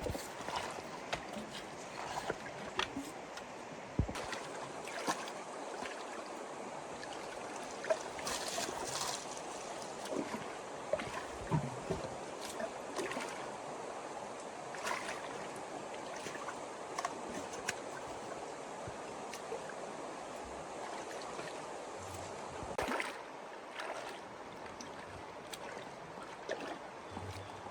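Water sloshing and splashing, with scattered light knocks and clicks.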